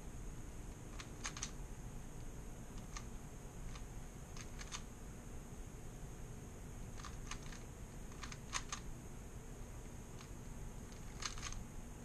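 Plastic clicks of a 3x3 Rubik's cube as its layers are turned, coming in short bursts of a few quick clicks with pauses between.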